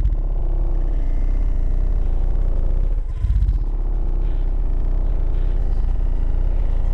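Orion HCCA 15-inch car subwoofer playing heavy bass, heard from right beside it in the car's boot, as a steady deep rumble. A heavier bass swell comes about three seconds in.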